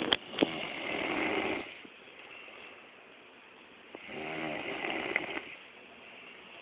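A sleeping person snoring: two long snores, each about a second and a half, some three seconds apart, the second with a buzzing, rattling tone. A sharp click comes at the very start. The sound has the narrow, thin quality of a phone microphone.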